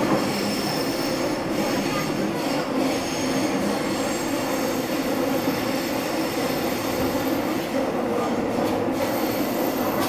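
Seoul Subway Line 8 train car running between stations, heard from inside the car: a steady rumble of wheels and running gear, with a thin high squeal that fades in and out, strongest near the start and again near the end.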